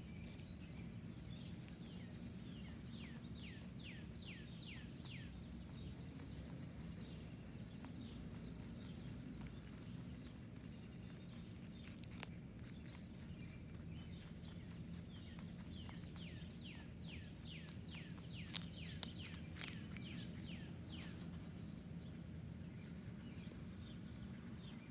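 Backyard ambience: a steady low hum, with a bird singing two runs of quick downward-sweeping notes. A few sharp crunches, about halfway through and again a little later, come from a wild cottontail rabbit biting into a baby carrot.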